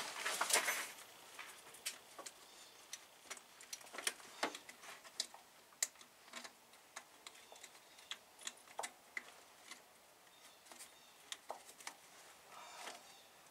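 Faint, irregular light clicks and taps, scattered unevenly with a few closer together, from hands reaching into an engine bay after a loose wiring connector.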